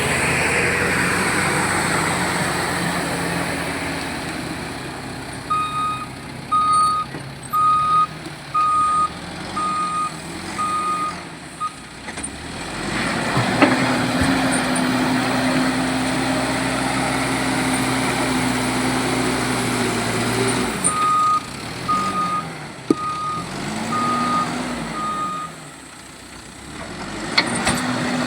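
Diesel engines of a backhoe loader and a dumper truck working, with a reversing alarm beeping roughly once a second in two runs, one a few seconds in and one in the last third. In between, an engine revs up and holds a steady pitch for about seven seconds under load, and engine pitch rises and falls briefly elsewhere.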